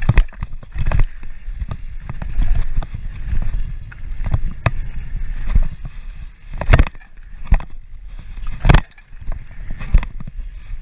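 Mountain bike rolling fast over a dirt track, its tyres crunching on the dirt under a constant rumble of wind on the camera microphone. Several sharp knocks and rattles from the bike hitting bumps and landing jumps, the loudest two about two-thirds and four-fifths of the way through.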